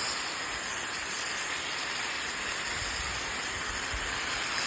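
Steaks sizzling steadily on a hot Blackstone flat-top griddle, a constant frying hiss.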